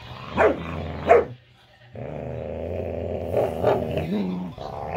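Dogs play-fighting: two short sharp barks in the first second and a half, a brief silence, then a long steady growl broken by a couple of barks.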